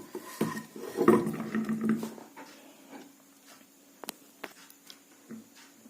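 Metal ceiling-fan motor parts clattering and clinking as they are handled on a table for about two seconds, then a few scattered small clicks.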